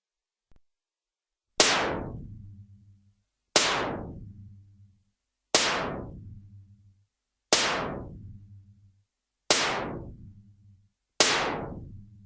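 Compressed gas gun firing six shots, about two seconds apart. Each shot is a sharp crack that fades over about a second and a half into a low ringing tail. A faint click comes just before the first shot.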